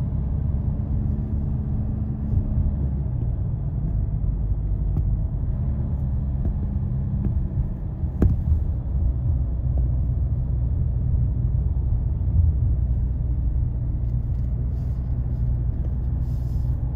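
A car's steady engine drone and road rumble, heard from inside the cabin while driving along a paved road, with one brief click about eight seconds in.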